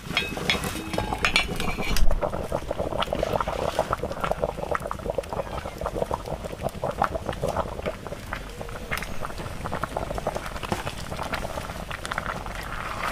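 Water boiling hard in a pot over a wood fire, with a steady dense bubbling. There is one louder knock about two seconds in.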